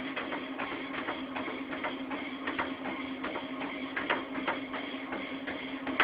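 A person running on a motorised treadmill: a steady motor hum under quick, evenly repeated footfalls on the belt.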